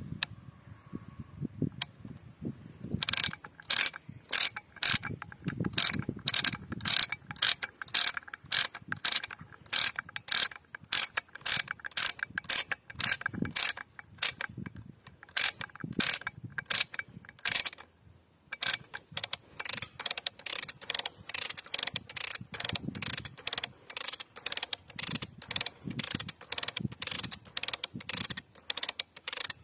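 Ratchet pawl of a hand-operated lever hoist (lever block) clicking as the lever is worked back and forth, hauling the chain in to tension a wire-mesh fence. A steady run of sharp clicks starts a few seconds in, stops briefly past halfway, then resumes.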